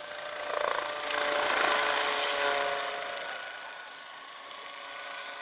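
Large radio-controlled scale model helicopter flying past, its engine and rotor giving a steady high-pitched whining buzz that swells to a peak about two seconds in and then fades.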